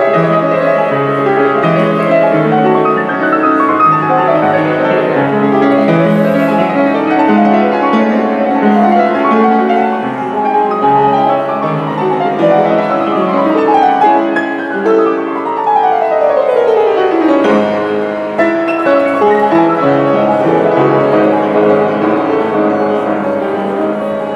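Yamaha upright piano played by hand: a fast, busy piece with many notes, including a long run of notes falling in pitch a little past halfway.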